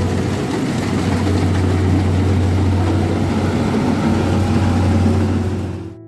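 Kubota rice combine harvester running while it cuts rice: a steady low engine hum under a loud, dense mechanical noise. The sound cuts off suddenly near the end.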